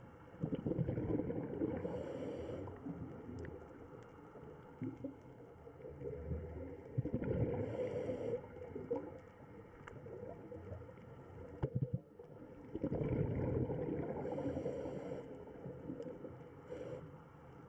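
Scuba diver breathing through a regulator underwater: three breaths about six seconds apart, each a rush of bubbling exhaled air with a brief high hiss.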